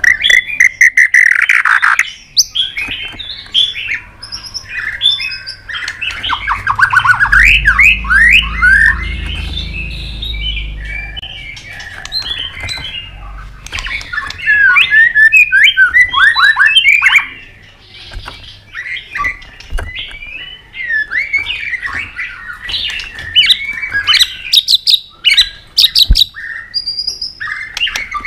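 White-rumped shama singing a long, varied song of quick slurred whistles and trills, broken by sharp clicking notes. A low rumble lies underneath for a few seconds in the middle, and the song pauses briefly after about two thirds of the way.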